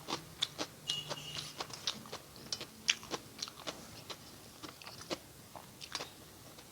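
Close-miked eating: a person chewing a mouthful of rice and curry, with irregular wet mouth clicks and lip smacks, several a second.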